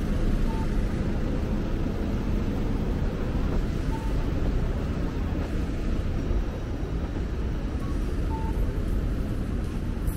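Steady city street traffic noise, a low rumble of vehicles on a busy road, with a few faint short beeps.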